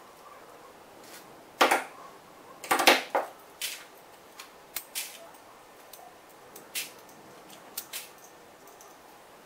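Small metal fittings and hand tools clicking and knocking as they are picked up and set in place during hand assembly. The two loudest clusters come about one and a half and three seconds in, followed by lighter single clicks about once a second.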